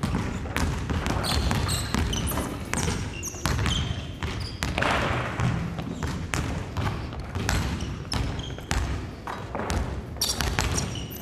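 Several basketballs bouncing and being dribbled on a wooden gym floor, with short high sneaker squeaks now and then.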